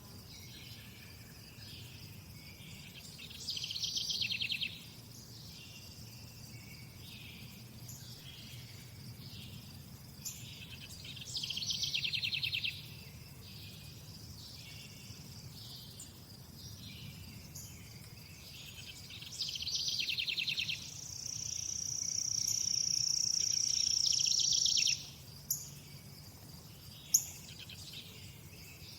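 Nature ambience of insects and birds: a steady background of high chirping, with a louder pulsed trill about every eight seconds. Later a long high buzz grows louder for about four seconds, then stops abruptly, and a couple of short sharp chirps follow.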